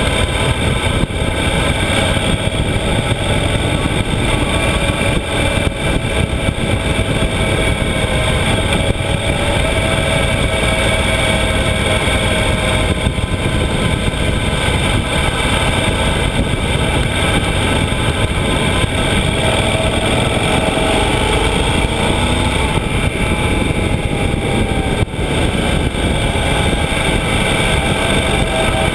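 Yamaha XT1200Z Super Ténéré's parallel-twin engine running while riding, under heavy wind rush on the camera microphone. The engine pitch rises and falls with the throttle through the bends, with a brief dip about 25 seconds in.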